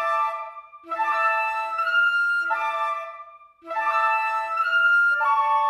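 Background music: a woodwind-like melody played in short phrases of a second or so, each broken off by a brief pause.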